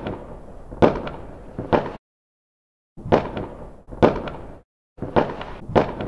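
Fireworks sound effect: about seven sharp bangs of bursting shells, each trailed by a fading rumble. They come in three groups of two or three, and each group cuts off abruptly into dead silence.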